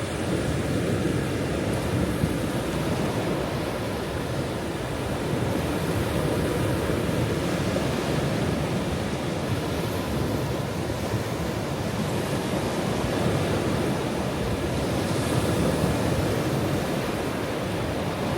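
Ocean waves breaking and washing on a shore: a steady rush of surf that swells and eases a little every few seconds, with wind on the microphone.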